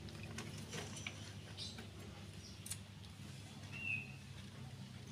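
Baby monkey sipping water from a plastic bowl, faint wet slurps and ticks over a low steady hum, with one short high chirp about four seconds in.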